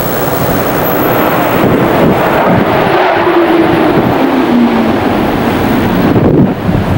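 Jet aircraft passing low overhead: a loud, steady jet-engine roar, with a tone in it that slides down in pitch about halfway through as the jets go by.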